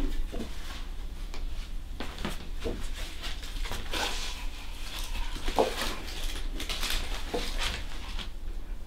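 Large sheets of printmaking paper rustling and sliding as they are handled and set against a cardboard board, with a few soft knocks.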